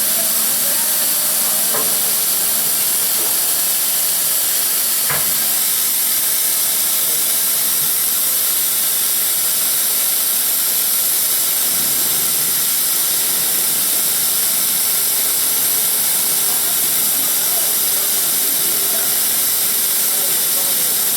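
CNC beam drilling machine running with a loud, steady hiss and a faint hum underneath.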